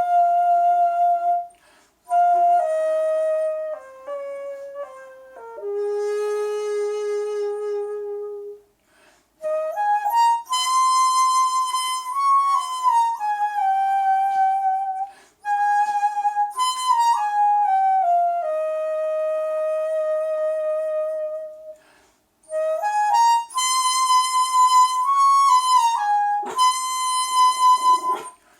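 Jeongak daegeum, the large Korean bamboo transverse flute, playing a slow solo melody without accompaniment. Long held notes, some bending or sliding into the next pitch, are broken every few seconds by short pauses for breath.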